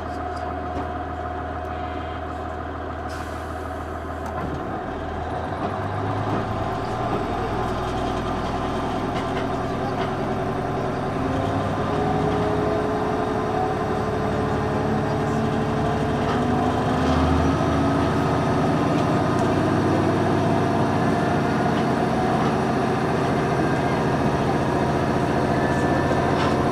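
KiHa 110 series diesel railcar heard from inside the cabin, pulling away from a station: its underfloor DMF14HZ diesel engine opens up from idle about four seconds in, growing louder with its note rising as the train gathers speed.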